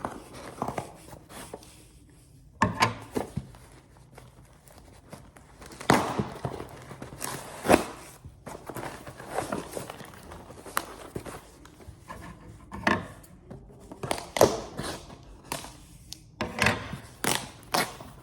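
A mailed package being opened by hand: irregular knocks and thunks of handling, with stretches of tearing and rustling packaging.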